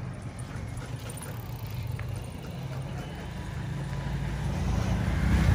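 Low rumble of a motor vehicle engine on the street, growing louder near the end.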